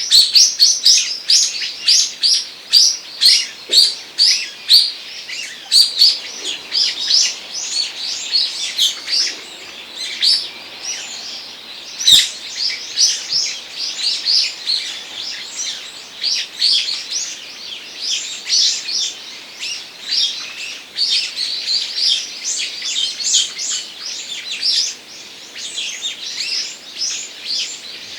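Small songbirds chirping busily, with rapid short high chirps coming several a second and overlapping throughout. A single sharp click sounds about halfway through.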